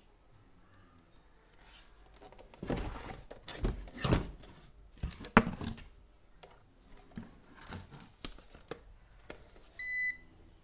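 Rustling and knocking as a Frontech UPS and its power cord are handled and shifted about, loudest a few seconds in with one sharp knock. Near the end the UPS gives a single short high beep.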